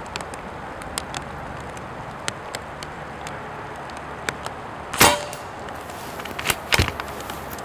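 A Hatsan Flash .22 PCP air rifle with an integral moderator fires once about five seconds in, a short, quiet crack. Soon after come several sharp clicks as the bolt is cycled to index the next pellet from the rotary magazine.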